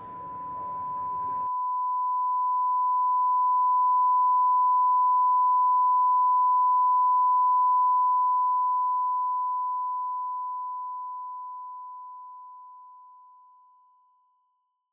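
A single pure electronic tone near 1 kHz, like a test-tone beep. It swells up over the first few seconds, holds steady for several seconds, then slowly fades away and is gone just before the end.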